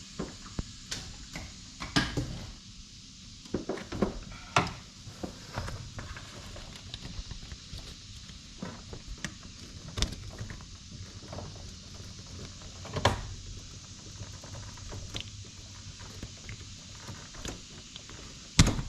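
Irregular clicks, taps and knocks of hands and a tool prying at a tight plastic connector on a mini Jeep's ignition wiring to work it loose, with a louder knock about two-thirds of the way through and another near the end.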